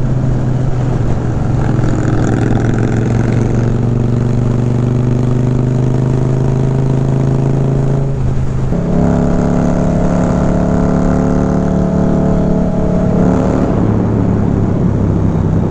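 Indian motorcycle V-twin engine running at road speed under the rider, with wind noise. About eight seconds in, the engine note dips briefly and comes back at a higher pitch, as when the rider shifts down to slow for a tunnel.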